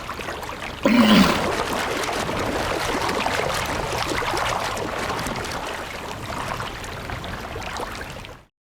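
Sea water splashing and sloshing around a walrus, with a sudden loud splash and a short low grunt about a second in. The sound cuts off sharply near the end.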